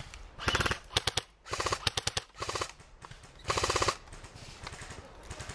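Airsoft electric rifle firing on full auto: about five short bursts of rapid shots in the first four seconds, with a few single shots between them, then quiet.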